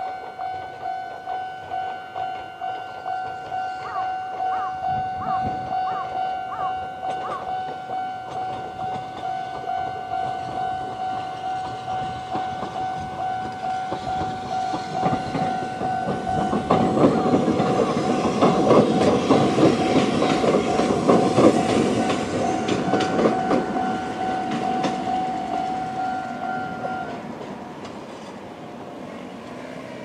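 Japanese level-crossing alarm sounding its old-type standard tone in a fast, even beat. About halfway through, a Konan Railway 7000-series electric train passes over the crossing, its wheels clattering over the rail joints. The alarm stops a few seconds before the end.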